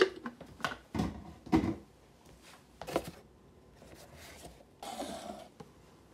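Drink cartons and a plastic cup being handled and set down on a granite countertop: several knocks in the first three seconds, then a brief noisy sound about five seconds in.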